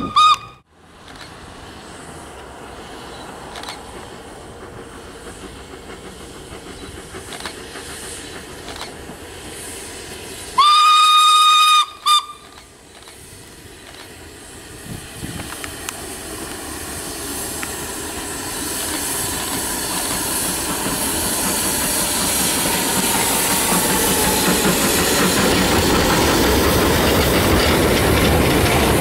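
Narrow-gauge steam locomotive sounding its whistle, one long blast and then a short toot, about eleven seconds in. The train then draws near and passes close by, its running growing steadily louder.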